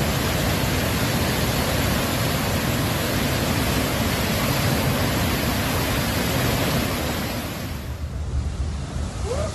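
Loud, steady rush of turbulent floodwater pouring through a dam's sluice gates. About eight seconds in, the sound turns softer and duller.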